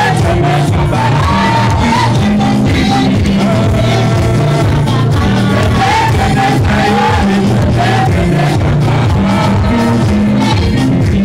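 Live Swahili gospel praise song: several women singing on microphones over keyboard, bass and a steady drum beat, loud through the hall's PA speakers.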